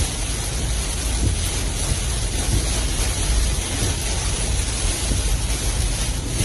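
Steady rush of heavy cyclone rain and wind, with a low rumble underneath throughout.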